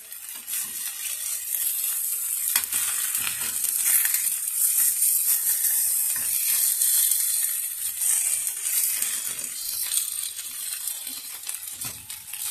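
Bologna slices sizzling as they fry in a nonstick pan, the hiss growing louder a few seconds in as they are turned, with a few light clicks of metal tongs against the pan.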